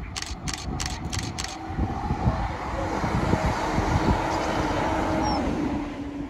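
ScotRail Class 170 Turbostar diesel multiple unit passing close by: engine note and wheel-on-rail noise build to a peak and fall away near the end as the train goes past. A quick series of sharp clicks comes over the first second and a half.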